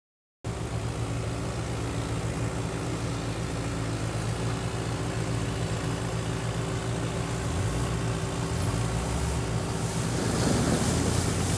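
Engine of a prune tree-shaker harvester running steadily, starting about half a second in. Near the end the shaker shakes the plum tree, adding a burst of rustling noise from thrashing branches and falling fruit over the engine.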